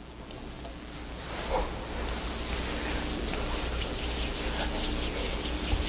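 Congregation leafing through their Bibles: a rustling hiss of many thin pages turning, with light flicks, growing louder over the first couple of seconds.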